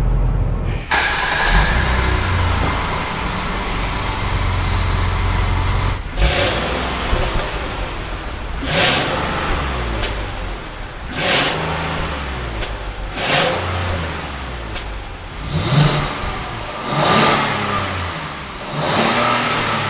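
Kia K8 engine and exhaust idling steadily, then blipped about seven times, each rev rising and falling back to idle.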